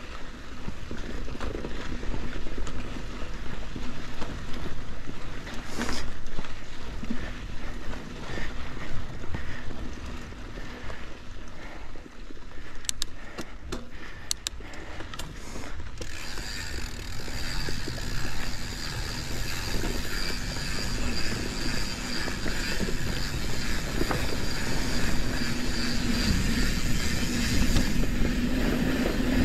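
Santa Cruz 5010 mountain bike rolling over a dusty dirt singletrack: a steady rush of tyres on dirt with the rattle of the bike. It grows louder from about halfway through.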